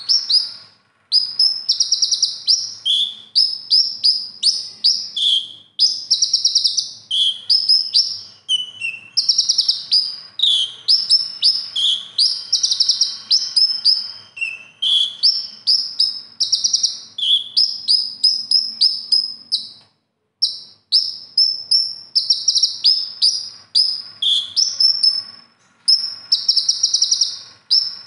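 A male van Hasselt's sunbird (konin) singing in a rapid run of high twittering trills, phrase after phrase with brief pauses. Its song is packed with 'isian', phrases imitated from other birds.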